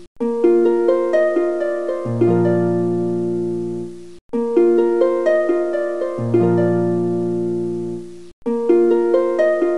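Background music: a short plucked-string melody, harp-like, played as a loop that repeats about every four seconds, with a brief gap before each repeat.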